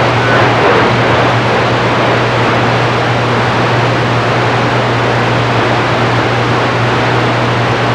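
CB radio receiver hissing with band static, a steady low hum underneath, and no voice coming through.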